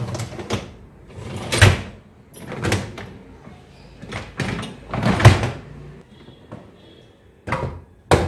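Dishwasher wire racks slid in and out on their rollers, a string of rattling slides, then the door is pushed shut with a sharp clack near the end.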